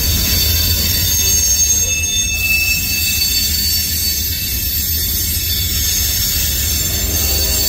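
Loaded freight cars of a slow-moving train rolling past, with a steady low rumble and high-pitched wheel and brake squeal. The uploader jokes that the brakes sound as if they were left on.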